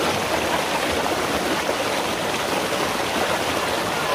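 River water rushing down a small rock cascade and splashing over people lying in the flow, a steady, loud rush.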